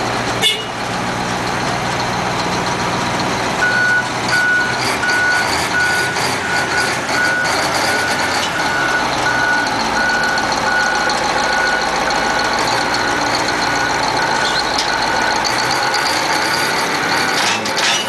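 Caterpillar 988B wheel loader's diesel engine running under load, with a reversing alarm beeping steadily from about four seconds in as the loader backs up.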